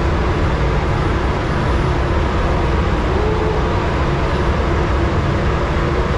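Steady low rumble of a ship's machinery on deck, even and unbroken throughout.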